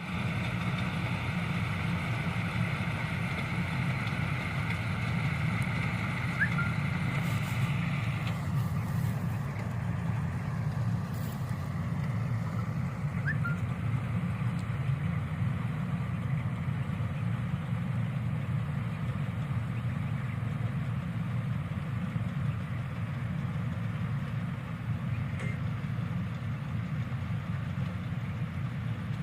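Dasmesh 7100 combine harvester running steadily, a continuous low engine and machinery drone. A higher, hissing part of the noise drops away about eight seconds in.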